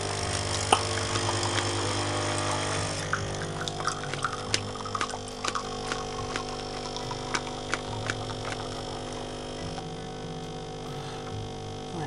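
Pump of a De'Longhi Essenza Mini Nespresso machine humming steadily as it extracts a coffee, with sharp clicks scattered through it.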